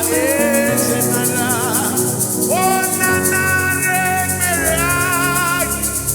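Gospel worship music: a steady shaker rhythm with plucked strings under a lead melody of long held notes that waver with vibrato and slide between pitches.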